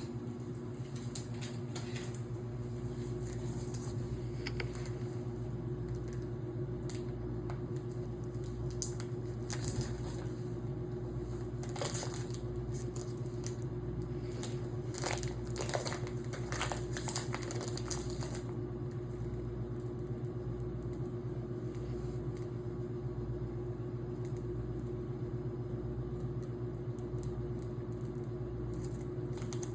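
A steady low electrical-sounding hum, with scattered small clicks and crinkling sounds during the first half that then stop.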